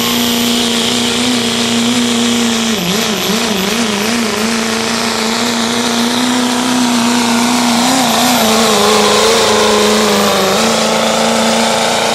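Pro street diesel pickup pulling a weight-transfer sled at full throttle: the engine holds one steady high-revving drone with a thin high whistle over it. Its pitch wobbles briefly about three seconds in and again near eight seconds.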